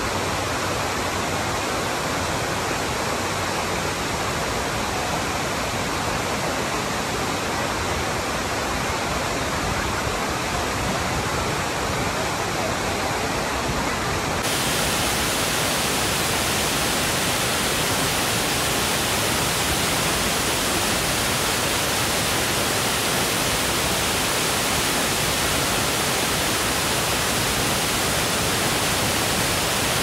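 Kapuzbaşı waterfall: a steady, dense rush of falling water. About halfway through it turns brighter and a little louder.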